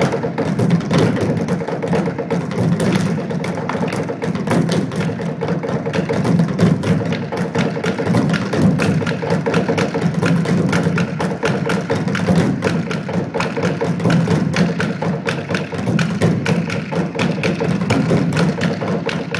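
Percussion ensemble drumming with sticks on black plastic bins: a busy, unbroken rhythm of many quick hits.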